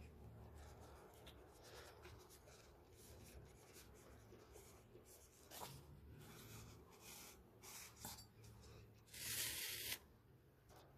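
Faint paper rustling and scratching as a sewing needle and thread are worked through the holes of a paper signature, then a louder swish of about a second near the end as the long thread is drawn through the hole.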